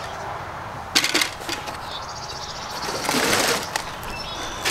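Wooden frame pieces of a cage kit knocking together as they are handled, then a cardboard box scraping and rustling as its flaps are moved, with a few light clicks.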